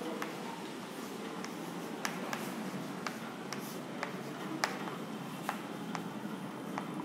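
Chalk writing on a blackboard: irregular sharp taps and short scratches as letters are stroked onto the board, over a steady low room hiss.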